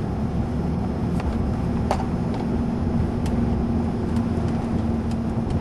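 Steady car noise heard from inside the cabin: a low rumble with a constant hum and a few light clicks.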